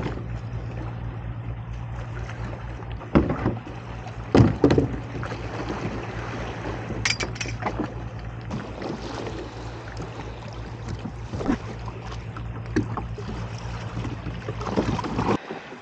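Sea water washing against rocks under a steady low rumble, with scattered knocks and clatters of camping gear being moved and loaded onto a kayak. The rumble cuts off suddenly near the end.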